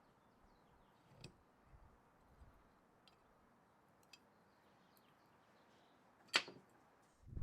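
Mostly quiet room with a few faint clicks and one sharper knock about six seconds in.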